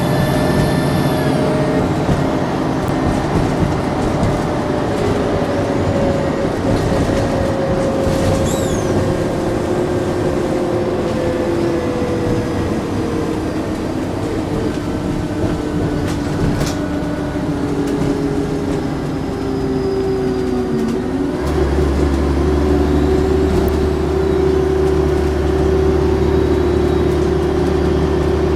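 Volvo Olympian double-decker bus running with its turbocharger whistling, the whistle pitch sliding slowly over the engine noise. About 21 s in, a deep engine drone sets in and a steady higher tone comes with it.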